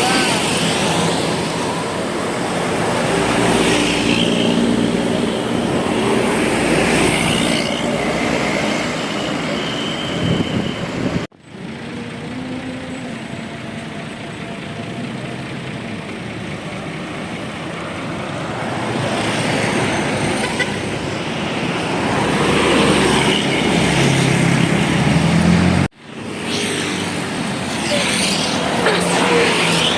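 Roadside traffic: buses and other heavy vehicles passing close by, engines and tyres swelling and fading. The sound breaks off abruptly twice, about 11 seconds in and again near 26 seconds.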